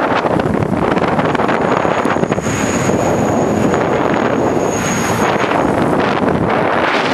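Wind rushing and buffeting over the microphone of a moving rider: a loud, steady roar of noise. A thin, high steady whine sounds through the middle of it, from about one second in until about six seconds.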